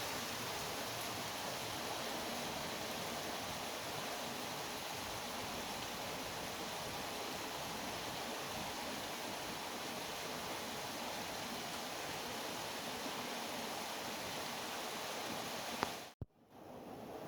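Steady rain, an even hiss without distinct drops. Near the end a sharp click and a half-second gap break it before the rain comes back.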